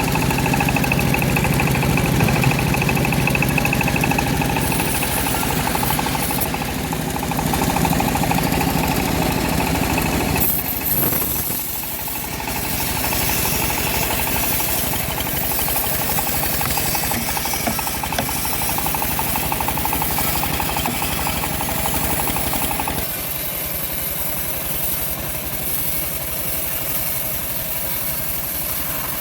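Homemade engine-driven bandsaw mill running steadily with a throbbing, knocking engine note. The sound drops and changes about ten seconds in, and changes again a few seconds before the end.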